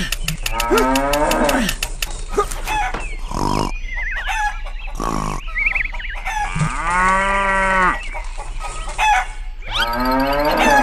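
A rapid string of spliced-in sound effects: short pitched calls that glide and arch up and down like animal cries, with one longer arching call about seven seconds in.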